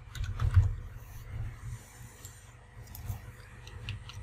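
A few computer keyboard keystrokes, most in the first second, with a couple more later, over a steady low rumble of background noise.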